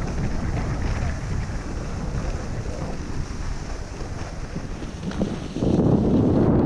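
Wind rushing over the microphone of a fast-moving action camera, mixed with the hiss of skis running over groomed snow; it gets louder about five and a half seconds in.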